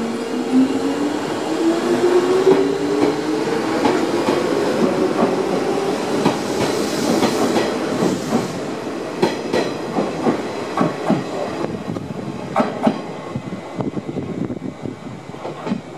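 Izu-Hakone Railway 3000 series electric train pulling away: its motor whine rises steadily in pitch over the first few seconds as it accelerates. Then its wheels clack over the rail joints, the clacks spreading out and growing fainter toward the end as the train draws away.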